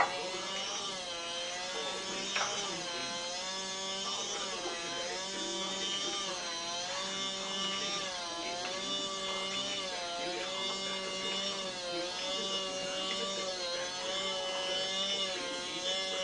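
Small electric motor of a motorized cake base whirring as it turns the cake and swings a toy plane overhead. Its whine wavers up and down in pitch in a steady cycle about once a second.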